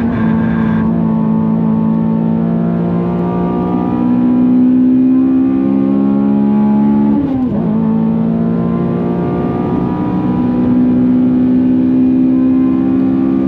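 Honda Civic FN2 Type R's K20 2.0-litre four-cylinder engine under full throttle, its pitch climbing slowly through a long pull in a high gear. About seven seconds in the pitch drops sharply at an upshift, then climbs again.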